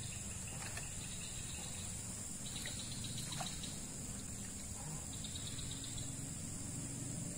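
Riverside insect chorus: a steady high insect drone with repeated short chirping trills, and a couple of brief falling bird calls about halfway through, over a low steady rumble.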